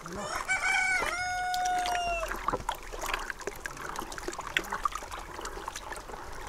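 A rooster crows once, starting about half a second in and holding its call for nearly two seconds. Under it, water sloshes faintly as a hand stirs urea into water in a plastic basin.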